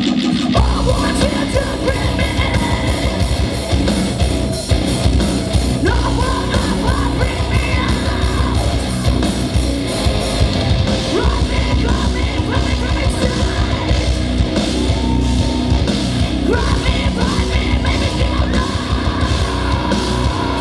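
Metal band playing live and loud: distorted guitars, bass and drums, with a female vocalist screaming and singing over them.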